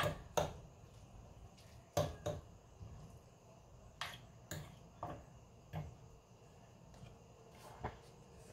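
A fork clicking and scraping against a baking dish while sauerkraut and vegetables are stirred in it: short, sharp taps, scattered a second or two apart.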